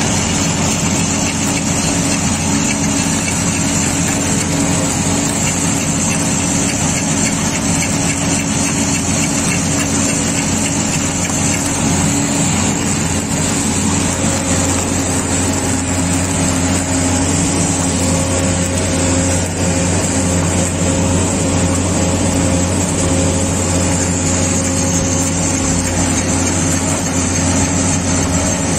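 Mobile rail flash butt welding machine running with a steady, unbroken machine drone and a constant low hum.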